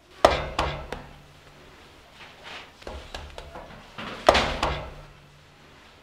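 Hand-shaped bread dough slapped and pressed onto a floured worktable. Three sharp slaps come in quick succession near the start, softer thuds follow, and three more sharp slaps come about four seconds in.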